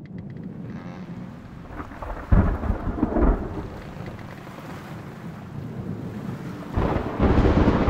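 Steady rain with thunder rolling twice, a loud deep rumble about two and a half seconds in and another building near the end.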